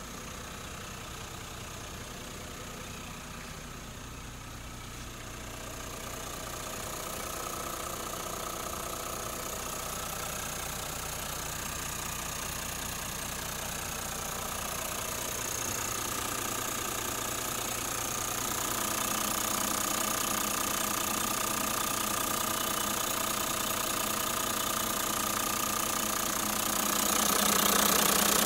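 Toyota Coaster's 1HD-FTE 4.2-litre straight-six turbodiesel idling steadily, heard from inside the bus and growing louder as the open engine cover is approached, loudest near the end.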